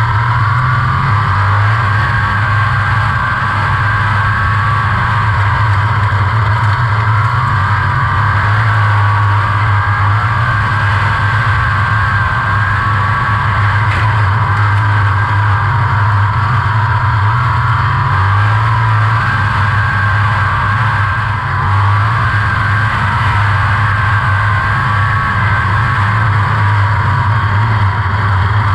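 360 sprint car's V8 engine at racing speed, heard from the cockpit, its note dropping and rising again several times as the throttle is lifted and reapplied around the dirt oval.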